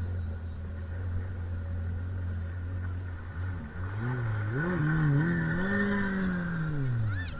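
Motorboat engine running with a steady low drone. About halfway through it revs up, its pitch rising and wavering, then drops back down near the end.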